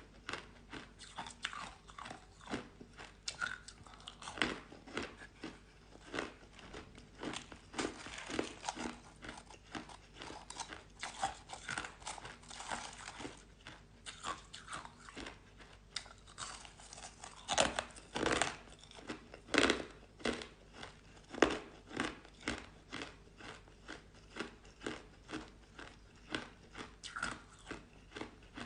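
Person biting and chewing shaved ice, a steady run of crisp crunches about two a second, with a few louder bites around two-thirds of the way through.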